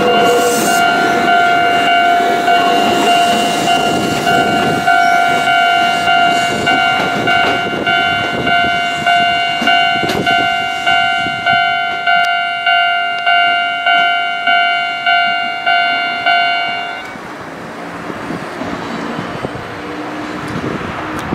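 Japanese level-crossing warning bell ringing in steady repeated dings, a little over one a second, over the running rumble of an Ohmi Railway 100 series electric train pulling away. The bell stops suddenly about 17 seconds in, leaving the train's quieter running noise.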